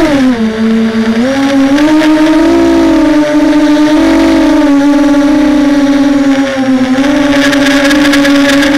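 Multirotor hexacopter's electric motors and propellers whirring with a steady buzzing tone that wobbles up and down in pitch as the throttle changes.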